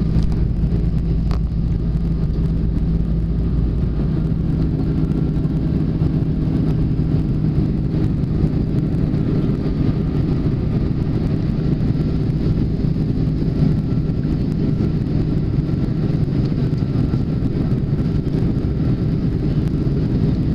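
Jet airliner engines heard from inside the cabin during the climb after takeoff: a steady low drone, its deepest rumble dropping away about four seconds in.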